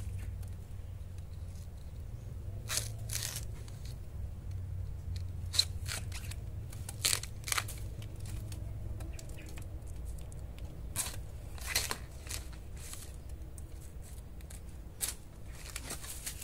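A large knife cutting a bamboo shoot free at its base and dry bamboo leaves crackling as it is handled: scattered short, sharp cracks and crackles a second or so apart.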